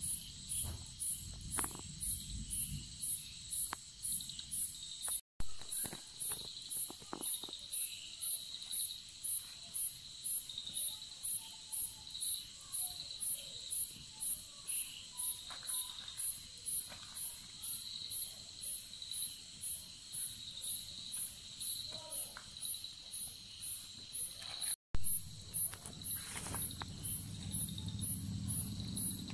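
Crickets chirping in a steady rhythm of about two chirps a second, with a second insect's pulsing trill beneath. The sound cuts out for an instant twice.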